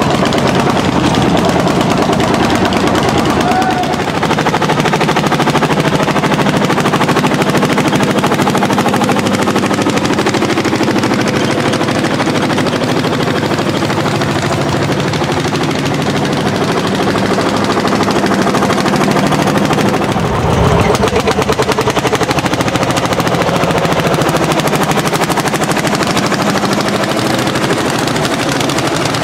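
Landini L55 hot-bulb tractor's single-cylinder two-stroke engine working hard under load as it pulls a plough, its exhaust a rapid, even stream of beats.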